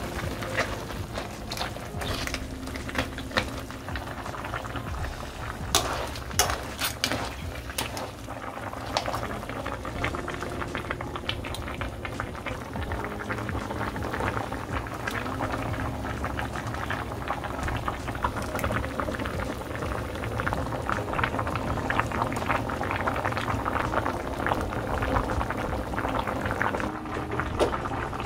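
Spicy clam and soft-tofu stew boiling hard in a frying pan, a dense steady bubbling and popping. A few sharp knocks sound in the first seven seconds.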